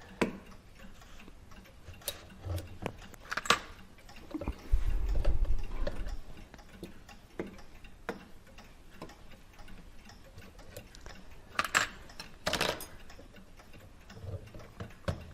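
Scattered light clicks and clinks of small parts from a Hermle clock movement being handled and set down during disassembly, with a few louder knocks and a brief low rumble of handling about five seconds in.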